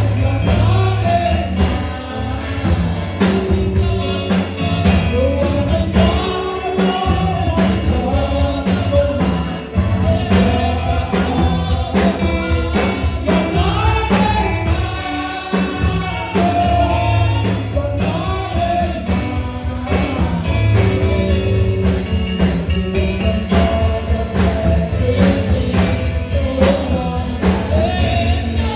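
Gospel praise music: group singing over a live band with steady bass and beat.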